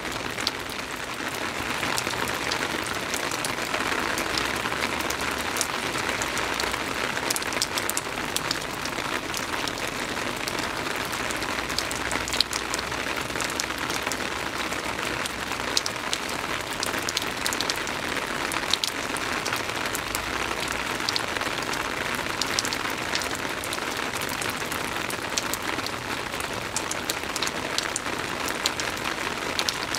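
Steady soft rain falling, a continuous patter with many small distinct drop ticks.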